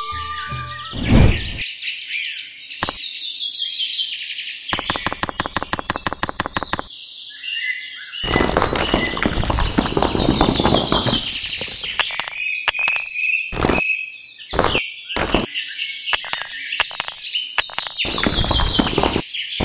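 Birds chirping and tweeting throughout, with a thud about a second in and a quick run of clicks a few seconds later. Small coloured pebbles rattle as they are dropped and pressed into sand by hand, in two spells: one around the middle and one near the end.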